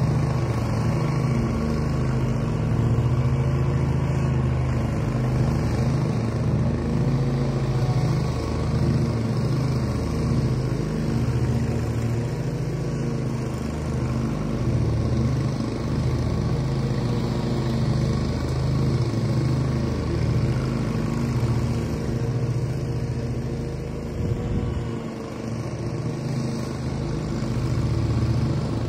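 Lawn mower engine running steadily while cutting grass, its pitch wavering slightly with the load. The level dips briefly about 25 seconds in.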